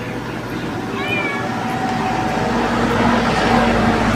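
A calico cat gives one short meow about a second in, over a steady background hum and noise that grows louder in the second half.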